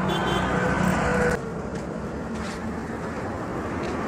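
Street traffic noise: a vehicle engine's steady hum that cuts off suddenly about a second and a half in, followed by an even background of street noise.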